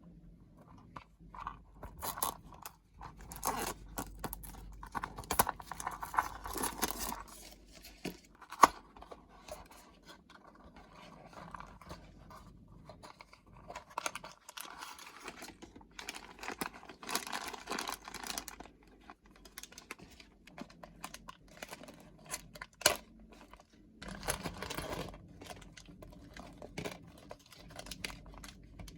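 Hands opening and handling toy packaging: cardboard and plastic rustling, crinkling and tearing in bursts, with scattered clicks and taps and one sharp click about nine seconds in.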